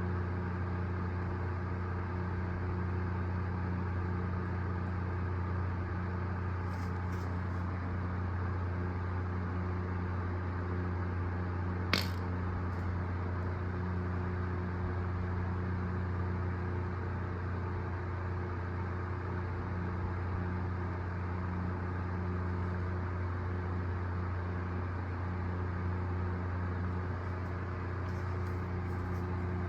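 Steady low mechanical hum, with a single sharp click about twelve seconds in.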